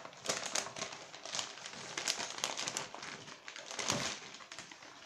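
White plastic mailing bag crinkling and rustling as hands grip it and rummage inside, a dense run of quick crackles.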